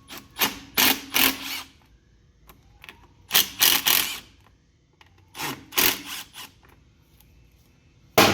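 A driver working the 5/16 screws out of the fan cover on a Briggs & Stratton twin-cylinder mower engine, in three short runs, then a sharp clank near the end.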